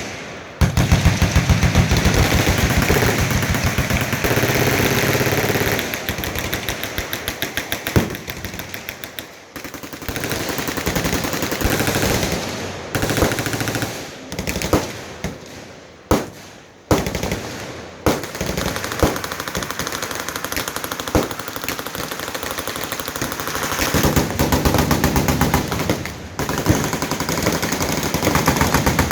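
Many machine guns firing at once, overlapping streams of rapid automatic fire that run on without a break. About ten louder single bangs stand out from the chatter, several close together in the middle.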